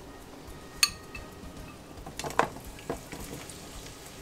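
A glass bowl clinks sharply against cookware about a second in, then sliced bell peppers are tipped out of the bowl into an oiled nonstick pan, landing with a short clatter a little past two seconds.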